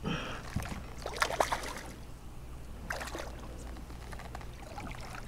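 Water splashing and dripping in a few short bursts as a small redfish is scooped into a landing net beside a kayak, over a faint steady low hum.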